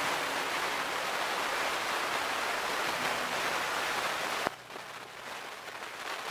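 Steady hiss of noise, like rain or static, in the background music track, cutting off suddenly about four and a half seconds in and leaving quieter music.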